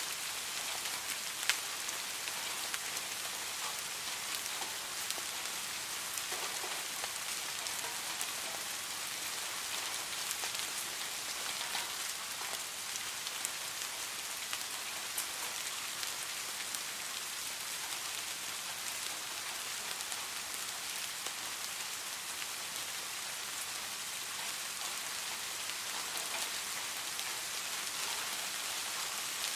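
Steady rain falling, a dense even hiss with many individual drops ticking on a surface, one drop louder about a second and a half in.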